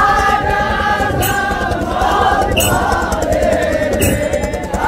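Several voices singing a chant together, with a sharp cymbal-like strike keeping time about every second and a half.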